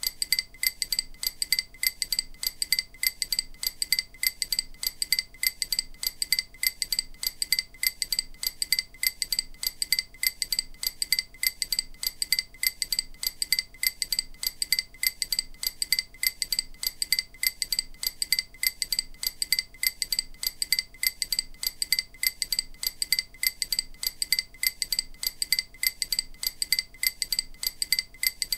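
EMDR bilateral-stimulation audio: short, high, bell-like pings repeating at a quick, even rhythm without change, meant to alternate between the left and right ears.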